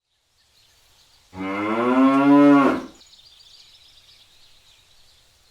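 A cow mooing: one long call of about a second and a half, its pitch rising slightly and then falling away at the end.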